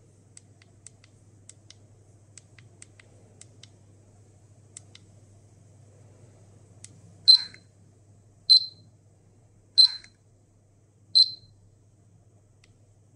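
Handheld Polimaster PM1703-GNA radiation dosimeter giving four short, high-pitched beeps about 1.3 seconds apart, after several seconds of faint, irregular clicks.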